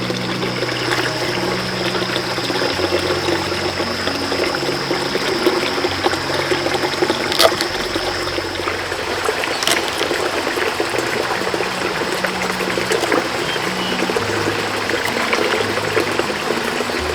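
Water running steadily over soft background music of sustained low notes, with two light clicks near the middle.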